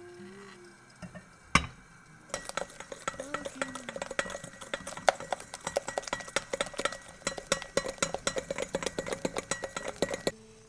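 A metal mixer beater stirred by hand in a glass bowl of egg whites and sugar, clinking rapidly and steadily against the glass, after a single knock about one and a half seconds in. The mixture is being warmed over a double boiler to 55 °C for meringue.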